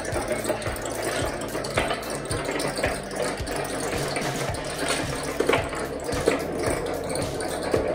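Glass marbles rolling and clattering down a wooden ramp studded with pegs: a steady rolling rumble with many scattered clicks as they hit the pegs. Toward the end, marbles are also circling in a wide black funnel.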